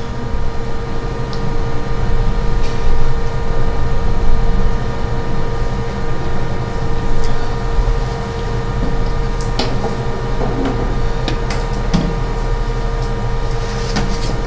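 Steady low mechanical room hum with a constant mid-pitched tone running through it. A few scattered light clicks come in the second half as a laptop is worked.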